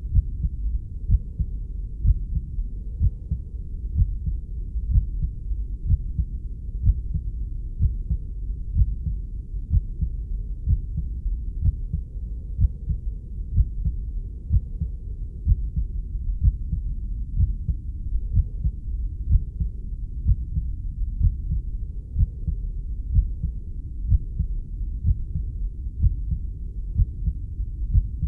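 Heartbeat sound: deep, muffled thumps about once a second over a steady low rumble.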